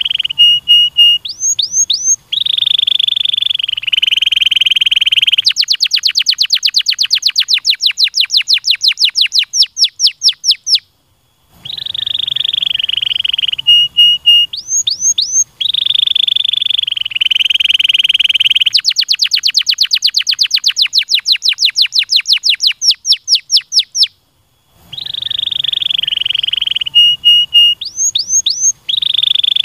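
Domestic canary singing a loud song. Each phrase has buzzing rolls, a few short notes and quick rising whistles, and then a long run of rapid repeated notes. The same phrase comes round about every 13 seconds, with a brief break between.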